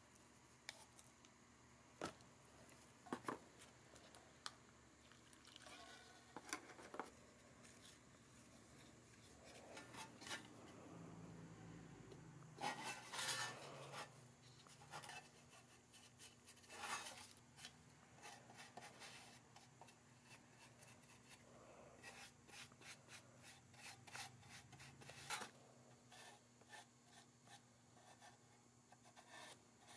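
Faint workbench handling sounds: scattered clicks and taps from a metal can and plastic cup. Later a plastic spreader scrapes and smooths grey metal filler over a metal toy truck part in many quick short strokes.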